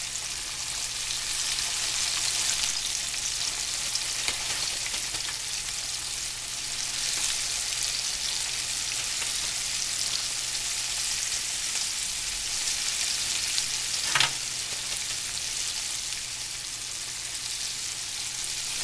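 Flour-dredged chicken wings deep-frying in hot oil in a pot, sizzling steadily. A single sharp click sounds about fourteen seconds in.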